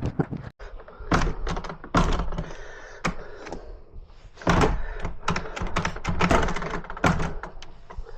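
A run of clicks, knocks and clunks from a uPVC French door and its hardware being worked, irregular rather than evenly spaced.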